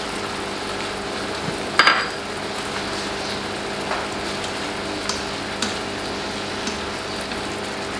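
Prawns in a garlic, chilli and lemon-juice sauce sizzling steadily in a frying pan over a medium gas flame. There is a short clatter about two seconds in, and later a few light taps of a spatula as the prawns are stirred.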